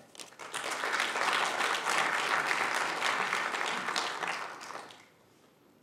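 Audience applauding. The clapping builds quickly, holds steady, and dies away about five seconds in.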